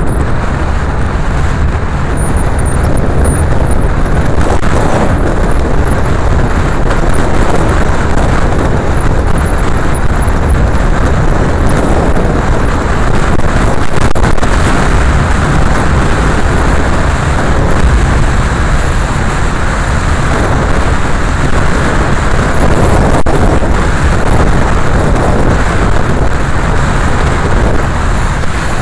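Car driving along a lane: continuous engine and tyre-on-road noise, loud and steady, heaviest in the deep range.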